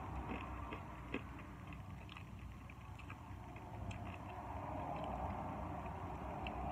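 Mouth sounds of eating noodles: small wet clicks of chewing and sucking in a long strand, scattered through, over a steady low hum.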